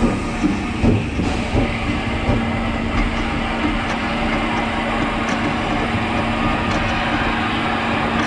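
Steam train running slowly along the track: a steady running noise with a steady hum, and a few knocks from the wheels in the first couple of seconds.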